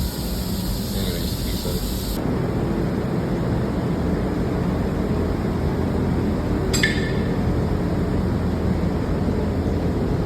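Steady mechanical hum of machinery in a body shop, with a single sharp metallic clink about seven seconds in.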